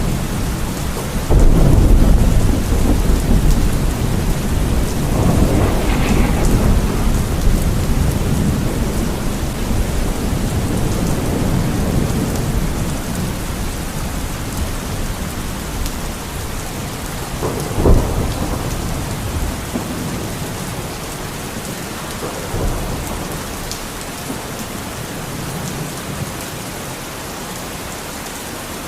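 Steady rain falling during a thunderstorm, with deep rolls of thunder, the loudest beginning about a second and a half in, and a short sharp crack of thunder near the middle; the rumbling fades away toward the end.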